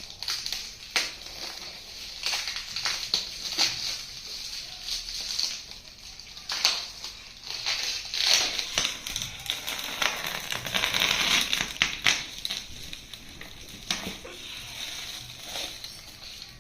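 Packaging of a flat-pack table being cut and torn open by hand: irregular crinkling, scraping and sharp crackles, heaviest about ten to twelve seconds in.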